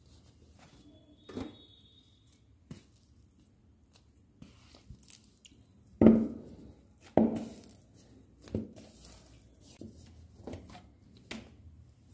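A hand punching down and pressing soft dough in a bowl: a few dull thumps, the two loudest about halfway through, then several lighter ones.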